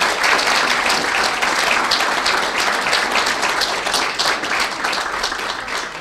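Audience applauding, a dense wash of many hands clapping that begins to die down near the end.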